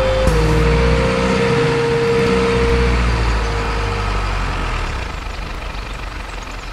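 Truck engine sound, a steady low rumble with a whining tone that steps down slightly in pitch and stops about four seconds in; the sound then fades away toward the end.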